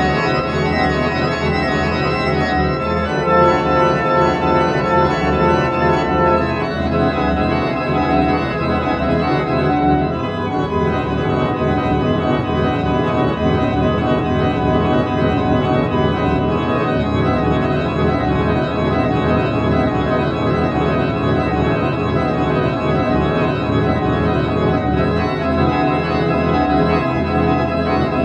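Background music of slow, sustained chords, each held for several seconds before shifting to the next.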